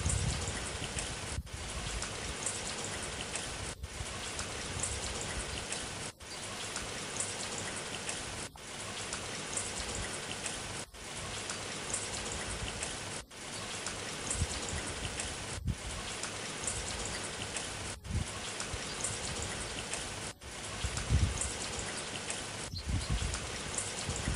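Rain sound effect: a steady hiss of falling rain, broken by a brief dropout about every two and a half seconds where the recording loops.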